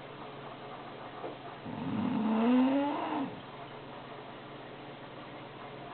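A sleeping pet snoring: one pitched snore, rising in pitch, beginning a little under two seconds in and lasting about a second and a half.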